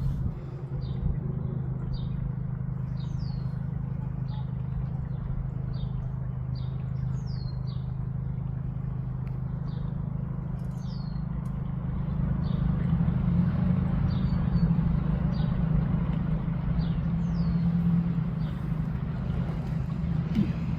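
Steady low motor hum, a little louder from about twelve seconds in, with a bird repeating short, falling chirps over it, most of them in the first half.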